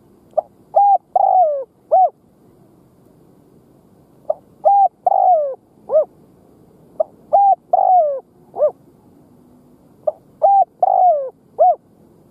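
Spotted dove cooing its song four times, about one phrase every three seconds. Each phrase is four coos, the third longer and falling in pitch.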